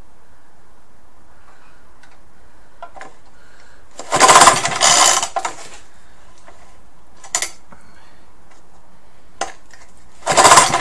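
Recoil starter of an old Suffolk 75cc engine being pulled, a couple of quick whirring pulls about four seconds in and another near the end, with the engine turning over but not firing. Small clicks of the starter and engine being handled between pulls.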